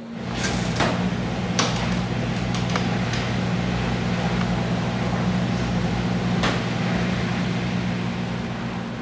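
Steady low hum of a laundry machine running, with a few sharp knocks and clicks scattered through it.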